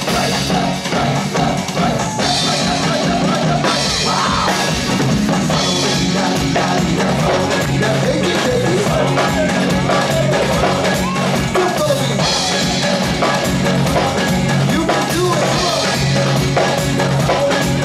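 Live band playing an upbeat song with a drum kit keeping a steady beat, guitar and keyboards, and singing over it.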